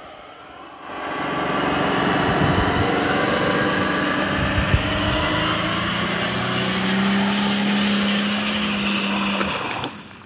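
Ford Ranger pickup's engine revving hard near full throttle with the rear tyres spinning on wet pavement, under the heavy load of dragging a fallen tree. The engine comes up about a second in, holds for about nine seconds, then drops off suddenly.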